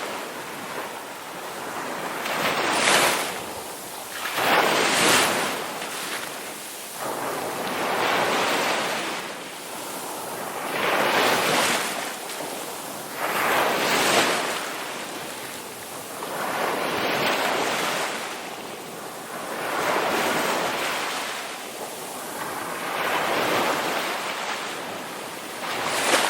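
Ocean waves breaking on a shore, each crash swelling into a loud rush of surf and falling back, about every two to three seconds.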